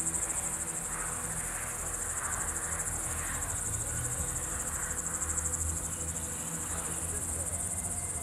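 Crickets chirping in a steady, high, rapidly pulsing trill over a low background rumble.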